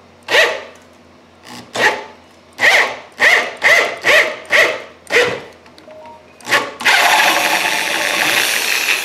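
Corded power drill turning a 1/8 inch NPT tap into a hole in an iron pipe tee, the trigger pulsed in about ten short whirs that each rise and fall in pitch. About seven seconds in, the drill runs on steadily.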